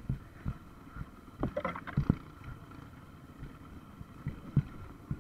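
Dirt bike on a steep rocky trail, its engine running at low revs under irregular thumps and knocks from the bike jolting over rocks and roots. The sharpest knocks come about two seconds in and again near the end.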